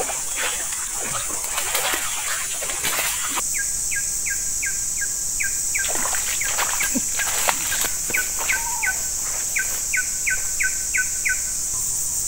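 A bird calling a long series of short, sharply falling notes, about two a second, over a steady high-pitched insect drone. Scattered short rustling or splashing knocks in the first few seconds, before the calls begin.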